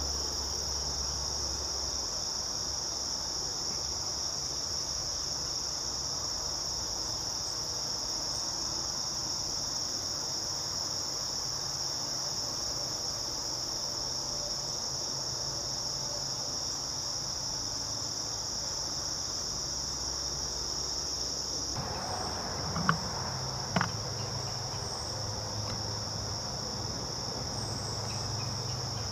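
Steady high-pitched chorus of insects in the woods. About two-thirds of the way through, two short knocks come about a second apart.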